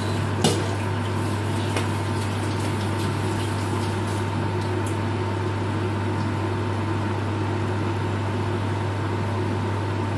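Steady low mechanical hum with a faint steady whine above it, and a single click about half a second in.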